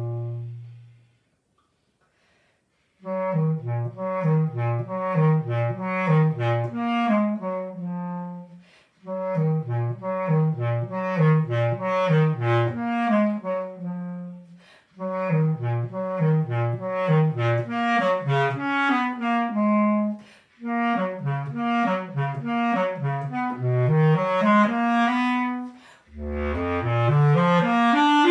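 Solo bass clarinet playing an orchestral excerpt: a low held note dies away in the first second, then after a short pause come quick runs of low notes in phrases of a few seconds each, broken by brief breaths, with a rising line near the end.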